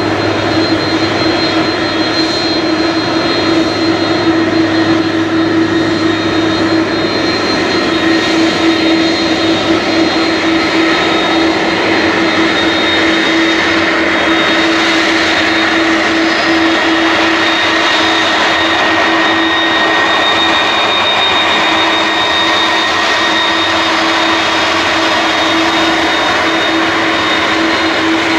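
Airbus A330-302's twin General Electric CF6-80E1 turbofans running at low taxi power: a steady jet whine with a constant mid-pitched drone and thin high whistling tones.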